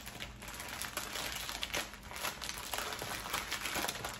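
Paper sandwich wrapper crinkling irregularly as it is handled and folded by hand.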